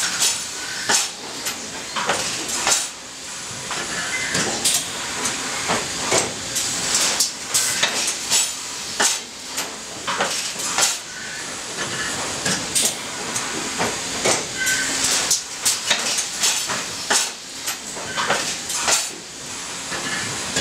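Sencorp thermoformer running: repeated sharp hisses of compressed air and metallic clanks and knocks, several a second and irregular, as the press station cycles and the chain-rail conveyor indexes.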